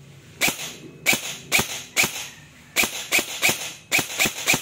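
Airsoft AEG rifle with a programmable ETU firing single shots in semi-auto through a chronograph, about ten sharp cracks in a little over four seconds at an uneven pace. The rifle is tuned to about 447 fps with 0.20 g BBs, and shot to shot it is very consistent.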